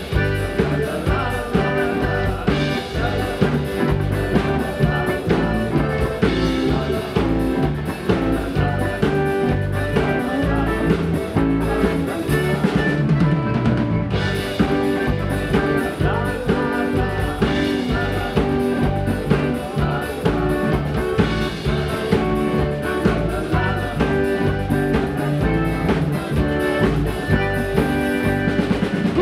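Live polka band playing: piano accordion over a steady drum-kit beat, with electric keyboard and guitar in the band.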